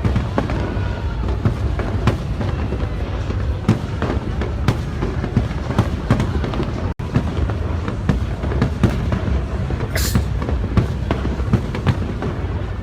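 Fireworks display: a dense, continuous run of bangs and crackles over a steady low rumble, with a short hissing burst about ten seconds in. The sound cuts out for an instant about seven seconds in.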